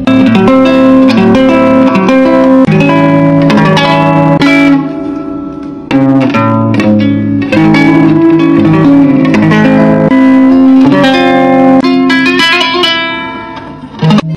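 Small acoustic-electric guitar played through a Marshall tube guitar combo amplifier, a plucked melody with chords sounding through the amp's speaker. This is a playing test of the amp after repairs for a fault where it cut in and out, and it sounds without dropouts apart from two brief lulls between phrases.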